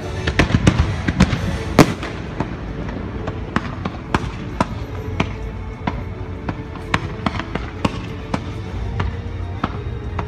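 A fireworks display. A rapid cluster of bangs comes in the first two seconds, the loudest about two seconds in, followed by scattered single bangs. Music plays steadily underneath.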